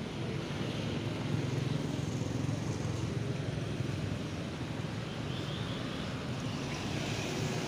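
Steady traffic noise: a low road rumble with a hiss over it.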